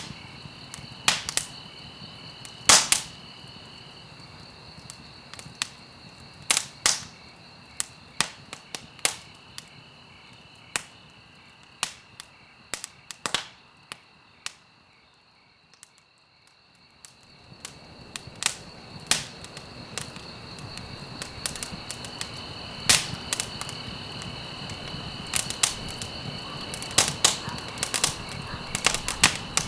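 Wood fire burning in a fireplace, crackling with irregular sharp pops over a soft hiss. About halfway through the hiss fades almost out for a couple of seconds, then comes back along with the pops.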